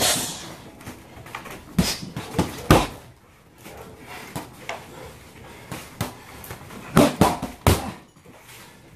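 Gloved punches and kicks thudding into a Title hanging heavy dummy: a quick group of three strikes about two seconds in and another group of three about seven seconds in, with lighter hits between.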